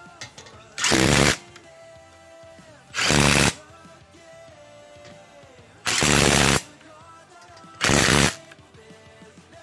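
Cordless impact wrench run on a car's wheel lug bolts in four short bursts of about half a second each, with background music between them.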